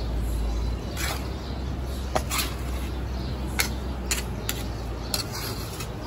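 A perforated metal skimmer ladle scraping through cooked rice and knocking now and then against the side of a large metal cooking pot, as the pulao is turned over. Scattered sharp knocks sit over a low, steady hum.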